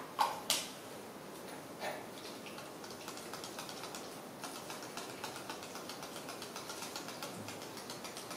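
A plastic baby bottle handled by hand: a few sharp plastic clicks in the first two seconds, then soft, rapid, even ticking as the nipple cap is worked onto the bottle.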